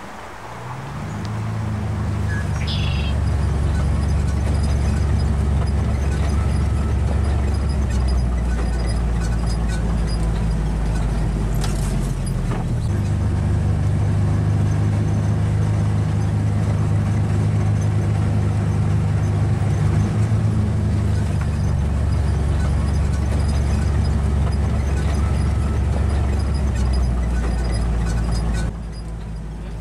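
Vehicle driving at night, a steady low engine and road drone heard from inside, its pitch shifting a few times and dropping near the end as it slows on arrival.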